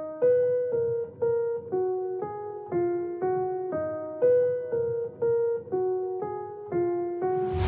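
Background music: a solo keyboard melody of single piano-like notes, about two a second, each fading away, with a swell building near the end.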